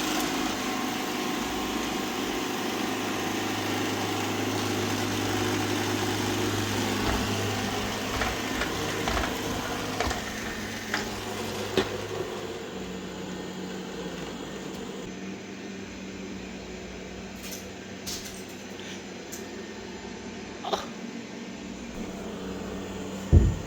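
Robot vacuum running over loose rice: a steady motor hum with scattered clicks and ticks of rice kernels. The hum changes character about halfway through, and there is one loud knock near the end.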